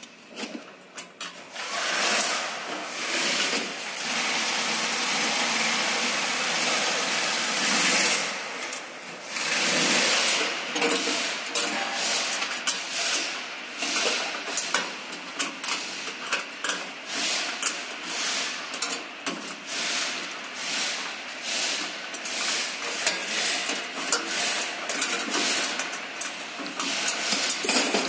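Rapid metallic clattering: a steady rattle for several seconds, a brief lull, then choppy, irregular rattling.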